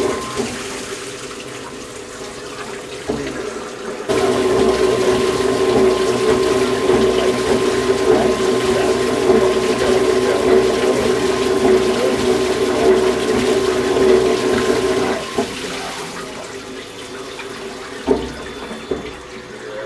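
Cylinder honing machine running in an engine block bore, with honing fluid pouring and splashing from the coolant hose: a steady mechanical hum under a rush of liquid. It gets much louder about four seconds in and drops back about fifteen seconds in.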